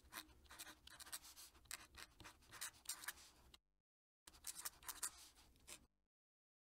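Faint scratching of a fountain pen nib on paper, writing in quick cursive strokes. The pen lifts about three and a half seconds in, writes again for about a second and a half, then stops.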